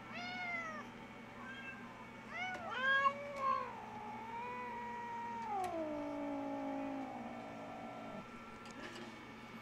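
Domestic cat meowing: a meow right at the start, a few short meows about two to three seconds in, then one long drawn-out meow of about four seconds that drops in pitch twice before fading out.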